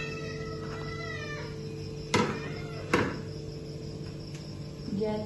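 Two sharp metal clinks about a second apart as a metal skimmer knocks against the wok and strainer plate, over a steady background hum.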